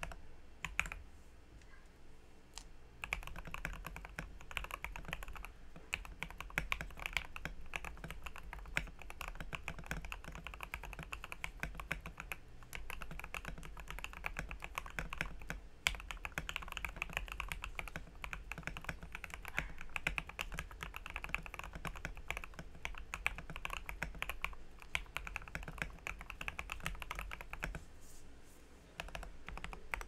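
Mechanical keyboard typing on a Tom 680 with lubed Glorious Lynx linear switches, a taped PCB and PE foam in the case. A few separate key presses at first, then fast, steady two-handed typing from about three seconds in, thinning out near the end.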